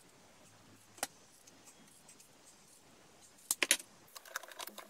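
Scissors snipping through a thin plastic sheet: a single snip about a second in, a few sharp snips around three and a half seconds, then a quick run of lighter clicks and crackles from the cut plastic strip near the end.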